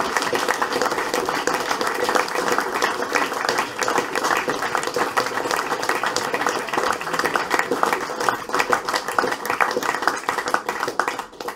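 An audience applauding: a dense, steady run of hand claps.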